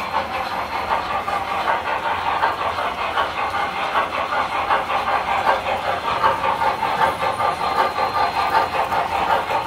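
Tinplate model steam locomotive running on three-rail track: a steady rush of metal wheels and motor on the rails with a fast flutter, along with the puffing of its smoke unit.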